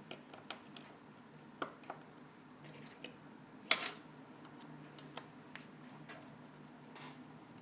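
Small sharp metal clicks and taps, scattered and irregular, from tools working the small metal shield off an opened iPhone 4S, with the loudest click about halfway through, over a faint steady hum.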